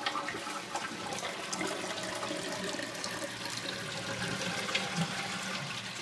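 Water running steadily into a 1989 URC Atlas toilet tank after a flush, a continuous rush as the tank refills.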